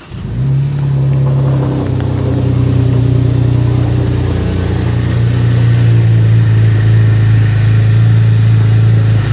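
2010 Chevrolet Camaro engine, with 143,000 miles on it, starting up and settling into a steady, loud high idle, its pitch stepping down slightly about two seconds in. It is a cold start, always loud at first and expected to quiet down once warm.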